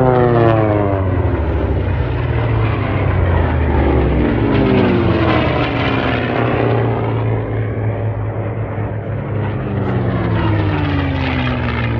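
Piston-engined warbird racing planes, a P-51 Mustang among them, flying low past at full power. Engine and propeller pitch drops as each one goes by: three close passes, near the start, in the middle and near the end.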